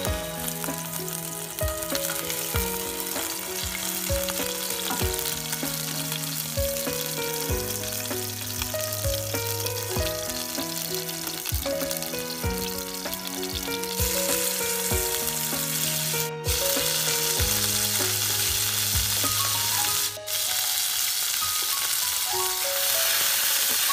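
Hot oil sizzling as chopped garlic fries in a non-stick pan, then with chicken pieces and crushed chilli near the end; the sizzle grows louder from about halfway. Background music plays throughout.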